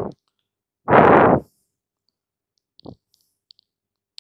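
Two loud puffs of breath straight onto a close microphone, each about half a second long, one dying away at the start and one about a second in. A few faint clicks follow near the end.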